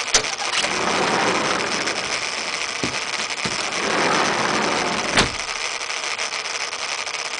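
Hurricane-force wind gusting, swelling and easing as a loud, rushing noise, with a few sharp knocks, the loudest about five seconds in.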